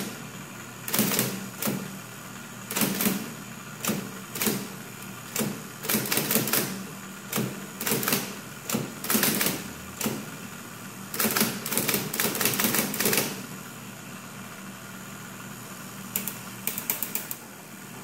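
1940s IBM Electromatic electric typewriter being typed on: irregular power-driven keystrokes over the steady hum of its running motor. The strokes stop for a few seconds after about 13 seconds, leaving only the motor hum, then come back as a quick flurry near the end.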